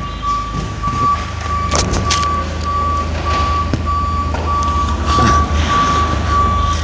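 Reversing alarm on a propane Komatsu forklift sounding a continuous series of evenly spaced high beeps, over the steady low hum of the forklift running.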